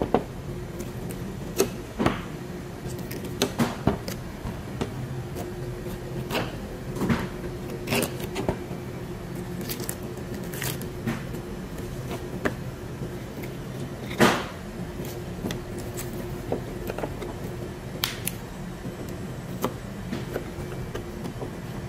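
Irregular knocks and taps of a boning knife and raw chicken pieces against a plastic cutting board as a whole chicken is cut apart, the sharpest knock about fourteen seconds in. A steady low hum runs underneath.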